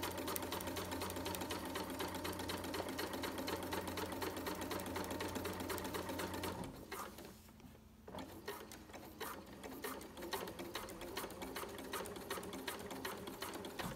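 Janome electric sewing machine stitching a zipper into a hoodie: a steady run of the motor and needle, a brief stop about seven seconds in, then stitching again more quietly.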